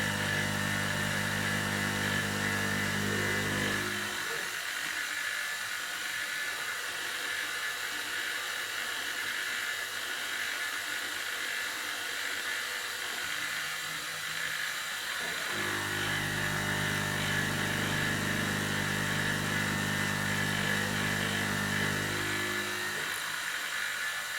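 Optimum BF16 milling machine converted to CNC, roughing aluminium: the spindle and cutter keep up a steady high whine. A lower hum of several steady tones runs for the first four seconds, stops, and comes back from about 15 to 23 seconds in.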